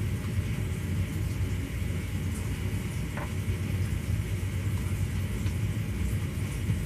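Steady low rumble of background room noise, unchanged throughout, with one faint click about three seconds in.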